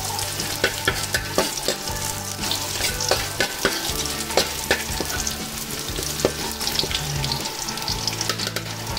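Chopped garlic sizzling in hot oil in an aluminium wok, sautéing toward golden brown. A metal ladle stirs it, scraping and clicking against the pan many times.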